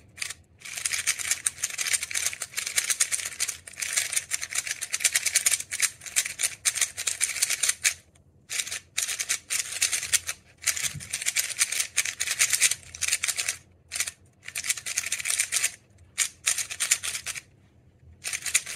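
DaYan GuHong Pro M 54 mm maglev speedcube being turned rapidly by hand for its first turns out of the box: fast runs of plastic clicking and clacking as the layers turn, in bursts with short pauses between.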